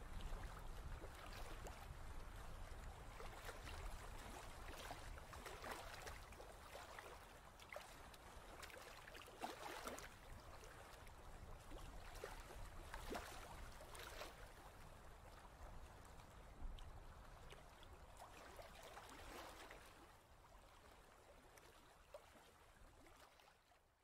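Ocean wave ambience: a faint, steady wash of water over a low rumble, with a few brief swells, fading out toward the end.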